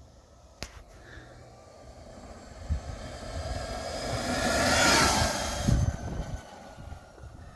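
Sur-Ron X electric dirt bike passing close by on a dirt track. Its motor whine and tyre noise rise to a peak about five seconds in and then fade, the whine dropping in pitch as it goes past.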